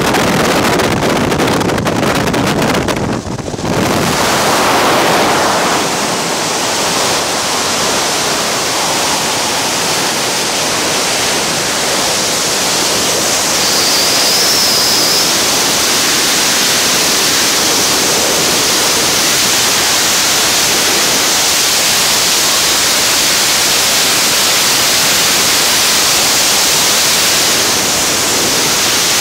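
Freefall wind rushing over a skydiver's camera microphone, a steady loud hiss. The first few seconds carry the heavier noise of the jump plane's engines and propeller wash at the open door, which dips briefly as the jumpers leave the aircraft.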